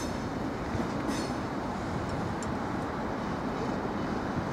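Bogie hopper wagons of a freight train rolling past: a steady rumble of wheels on rail, with a brief high squeal about a second in.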